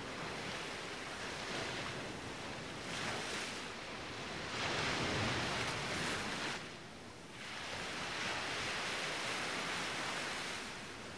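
Ocean surf: waves breaking and washing in, the roar swelling and easing in long surges, loudest about halfway through with a brief lull just after.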